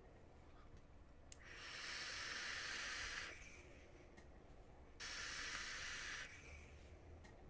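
Breathy hiss of a person vaping on a Little Boy rebuildable dripping atomizer with a 0.32-ohm single coil, drawing on it and blowing out vapour. There are two stretches: one about two seconds long starting a second and a half in, and a shorter one of just over a second starting about five seconds in. Each starts and stops sharply.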